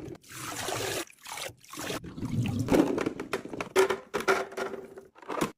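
Liquid being poured into a container in a run of trickling, mixed with many sharp clicks and knocks from containers being handled.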